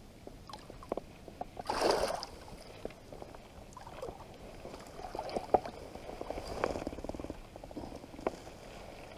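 River water lapping and sloshing at the shoreline, with scattered small knocks and a brief louder rush of noise about two seconds in.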